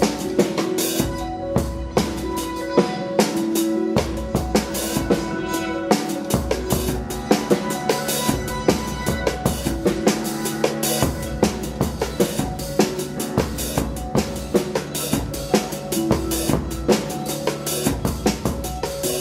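Live rock band playing an instrumental passage: a busy drum kit with kick, snare and rimshots hitting fast and steadily over held bass and sustained pitched notes.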